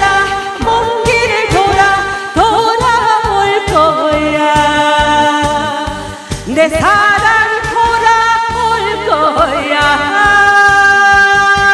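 Trot song performed live: a woman singing into a microphone with sliding, wavering notes over backing music with a steady beat, settling into a long held note near the end.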